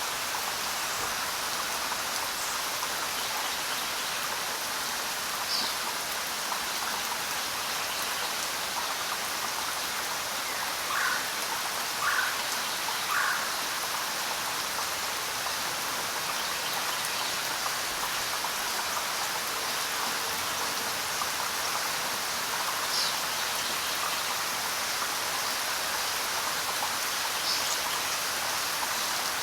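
Steady rain with occasional bird calls: a few short high chirps, and three lower notes about a second apart roughly eleven seconds in.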